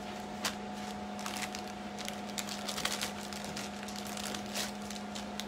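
Plastic zipper freezer bags of ground beef rustling and crinkling as they are handled, with scattered small clicks, over a steady low hum.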